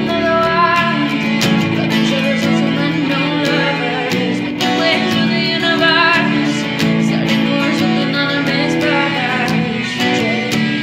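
Acoustic guitar strummed steadily, playing a song.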